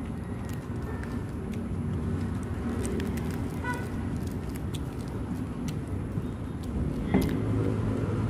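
Crisp crackles of lettuce leaves being torn and chewed over a steady low outdoor rumble, with a sharp knock about seven seconds in.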